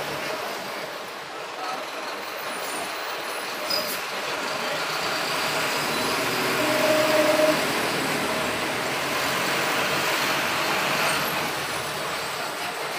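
Steady engine and road noise of a vehicle driving slowly through city streets, heard from on board, with a brief steady tone rising above it about seven seconds in.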